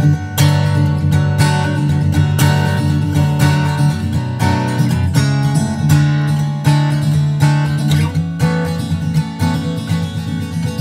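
Background music: an instrumental piece on solo acoustic guitar, picked and strummed at a steady pace.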